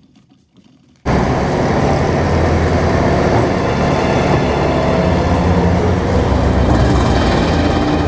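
Heavy industrial wood chipper machinery running, a loud steady engine-and-grinding drone with a deep rumble that cuts in suddenly about a second in.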